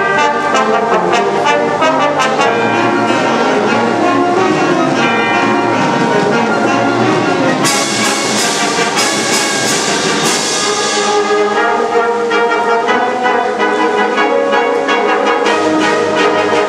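Concert wind band playing loud, full music with the brass to the fore, and a run of bright percussion strokes from about eight to ten seconds in.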